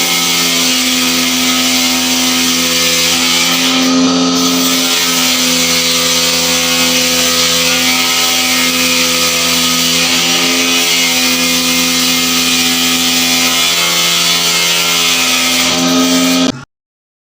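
Woodworking power machine running steadily, a constant hum with strong hiss; it cuts off abruptly near the end.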